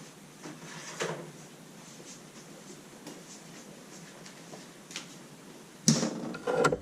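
Small objects being handled and rummaged through: faint clicks and rustles, then a louder burst of handling noise about six seconds in.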